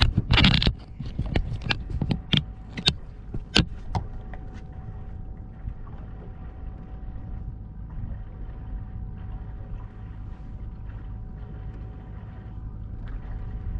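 A handheld camera being set down on a boat: a loud rustling knock, then several sharp clicks and knocks over the next few seconds. After that, a steady low rumble of wind and water around the boat with a faint steady hum.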